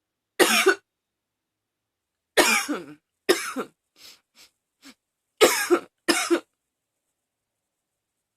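A woman coughing in a fit that won't stop: five loud, harsh coughs at uneven intervals, with a few faint short sounds between them around the middle.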